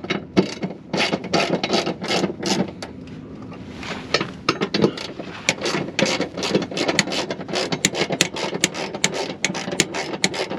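Hand ratchet wrench clicking as bolts are worked loose under a car: uneven bursts of clicks, then a fast even run of ratchet clicks in the last few seconds.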